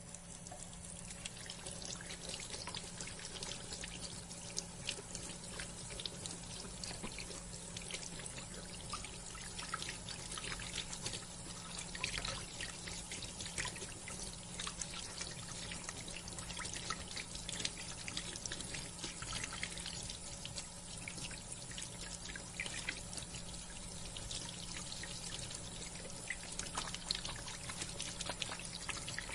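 Bathroom sink faucet running into the basin, a steady stream with many small splashes and drips against the porcelain.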